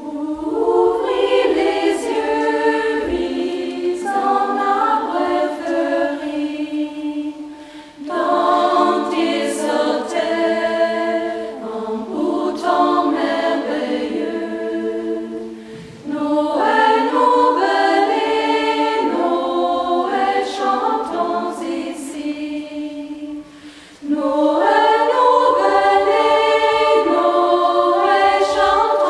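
Women's choir singing a cappella, in phrases of about eight seconds, each ending with a short break before the next begins.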